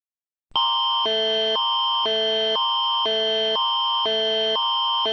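Canadian Alert Ready emergency alert attention tone, starting about half a second in. A high steady tone runs under two lower tone pairs that swap back and forth about twice a second, signalling an incoming emergency alert.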